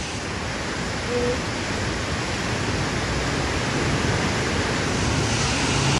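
Swollen, flooded river rushing steadily past its rocky bank: a churning brown torrent of floodwater.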